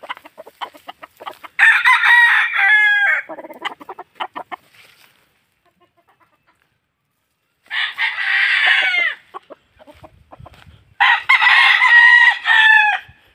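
Gamecock crowing three times, a few seconds apart, each crow ending on a falling note, with short clicking sounds between the crows.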